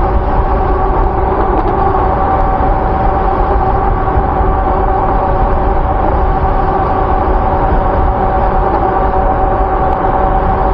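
Dual electric hub motors of a 48-volt e-bike whining at a steady pitch while cruising at speed under full power, about 35 mph. Heavy wind rumble on the microphone lies under the whine.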